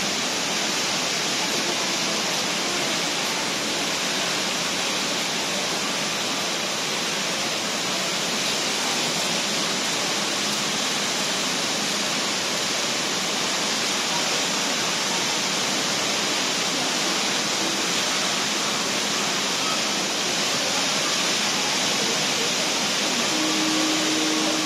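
Jewel Changi Airport's Rain Vortex, an indoor waterfall pouring from an opening in the glass dome into a pool below, making a steady, even rush of falling water.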